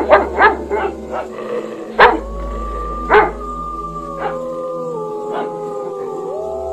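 Several dogs howling in long, overlapping, slowly falling tones. The loudest moments are a quick run of short sharp cries in the first second and two more about two and three seconds in.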